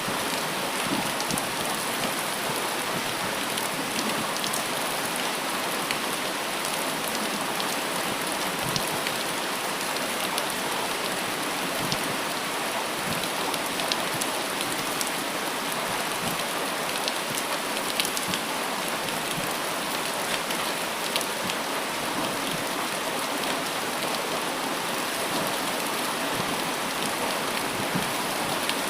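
Steady rain falling, with many sharp individual drop hits on close surfaces.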